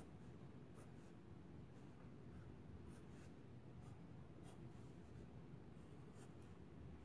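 Graphite pencil scratching faintly across sketchbook paper in short, irregular strokes, over a low steady hum.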